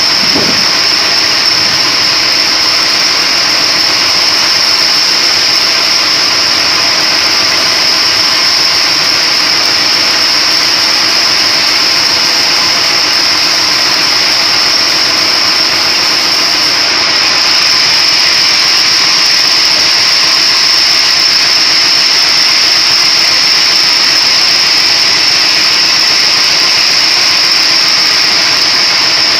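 Motor-driven splitting machine running steadily: a loud, even machine noise with a constant high-pitched whine over it.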